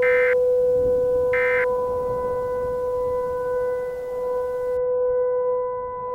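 Emergency Alert System SAME end-of-message data bursts: two short, buzzy digital bursts about a second and a half apart, finishing the three-burst sequence that marks the end of the alert message. Under them a steady electronic drone tone with overtones runs on.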